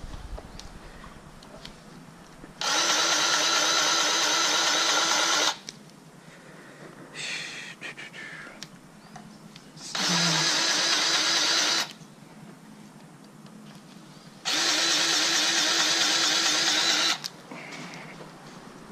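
Battery-powered grease gun running in three separate bursts of steady whirring, a few seconds each, pumping grease into the John Deere 310D backhoe's grease fittings.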